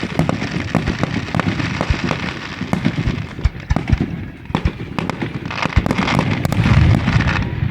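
Fireworks going off: an irregular run of many sharp pops and crackles, loudest about six to seven seconds in.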